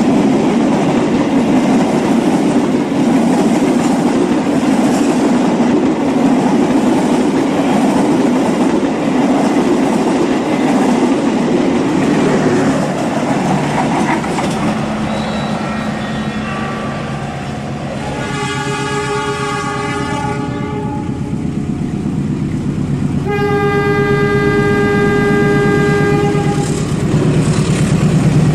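Battery-powered toy steam train running on a plastic track, with a steady rattling whir of its motor and wheels. Past the middle a train horn sounds twice, each for about three seconds.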